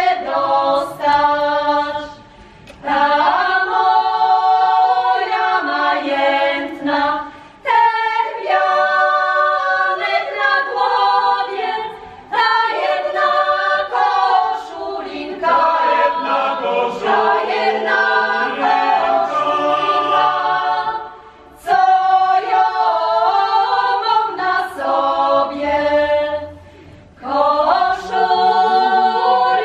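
Mixed folk choir singing a Kurpie folk song a cappella, in long phrases broken by short pauses for breath.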